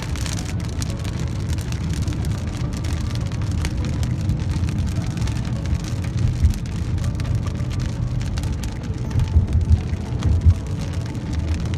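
Inside a car driving in rain: a steady low rumble of the engine and tyres on the wet road, with raindrops ticking on the windshield. A few louder thumps come in the second half.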